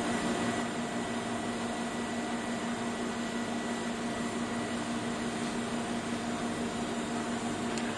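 Steady motor hum with a few constant low tones, unchanging throughout, and a faint tick near the end.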